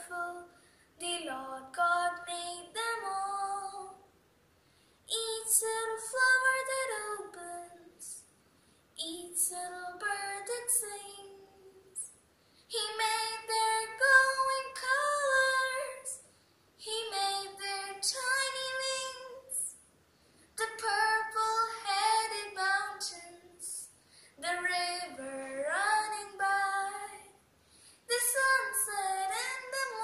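A young girl singing a poem unaccompanied, in short phrases with brief silent pauses between them.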